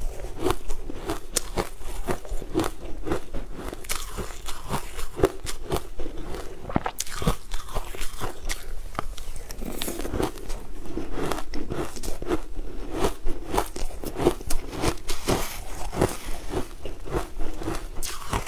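A person biting and chewing frozen ice eaten off a spoon: a dense, irregular stream of crisp cracks and crunches.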